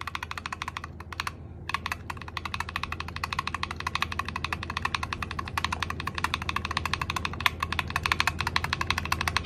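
Typing on a mechanical keyboard fitted with MT3 high-profile ABS doubleshot keycaps. A short run of keystrokes comes first, then a brief pause about a second and a half in, then fast, continuous typing.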